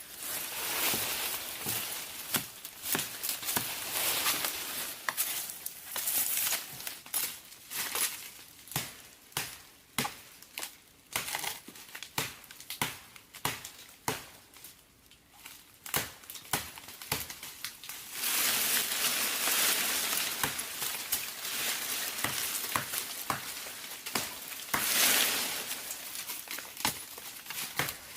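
Crinkling, crunching handling noise broken by many sharp clicks and snaps, with two louder stretches of dense rustling, one about two-thirds of the way in and a short one near the end.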